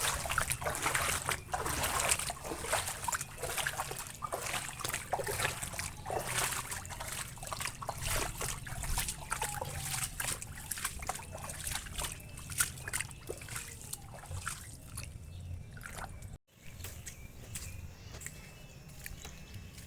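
Rain splashing and trickling onto standing floodwater: many small, irregular splashes with running water underneath.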